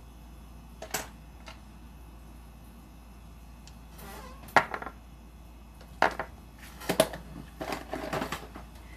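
Sharp clicks and clinks of small hard objects being picked up and set down on a table: one about a second in, then a busier run of knocks and short scrapes from about four seconds on.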